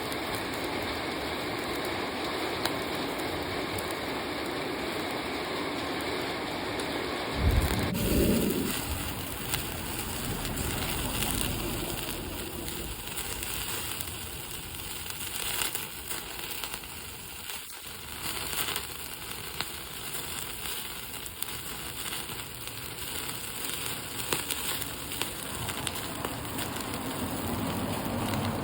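Crackling of a small cooking fire with meat grilling over it, scattered sharp pops over a steady rushing noise. A brief low rumble comes about seven seconds in.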